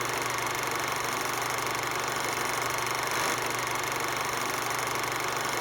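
Water cooler fan motor running steadily with a constant hum and whine, the noise of a bad bearing.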